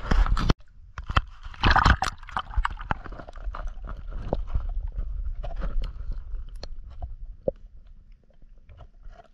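Audio from a camera held underwater: muffled, irregular knocks and clicks with gurgling water, loudest in the first couple of seconds and fading toward the end. It opens with half a second of loud noise that cuts off abruptly.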